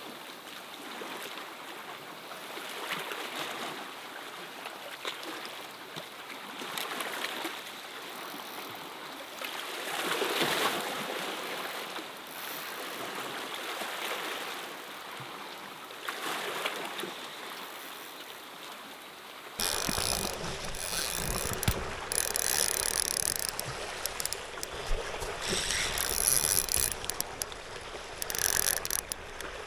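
Sea waves washing over shore rocks, the surf swelling and falling back every few seconds. About two-thirds of the way through, the sound changes abruptly to rougher wind noise with scattered sharp clicks and knocks.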